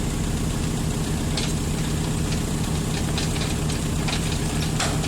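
Kubota excavator's diesel engine running steadily, with scattered sharp metallic knocks and clicks starting about a second and a half in.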